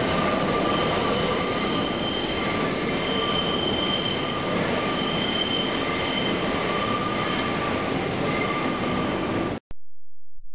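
New York City subway train running through a station, its wheels squealing in steady high tones over the rumble of the cars. The sound cuts off suddenly near the end, leaving a low steady tone.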